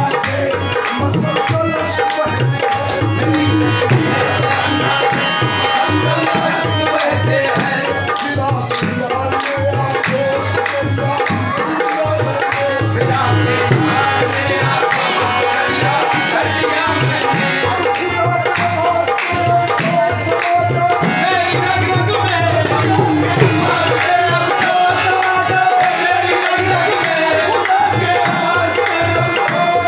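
Live qawwali music led by tabla drumming, with held melodic tones running over the drum strokes.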